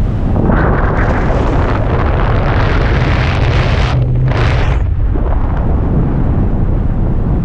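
Airflow from paraglider flight buffeting the microphone of a selfie-stick action camera: a steady low rumble, with a harsher rush of wind from about half a second in to about five seconds in that briefly drops away just before four seconds.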